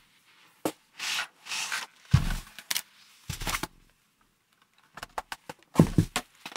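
Cloth protective cover rustling as it is pulled off an Edifier S350DB subwoofer, with the heavy wooden cabinet scraping and bumping on the tabletop as it is moved. There are a handful of short separate noises, and low thuds about two, three and a half and six seconds in.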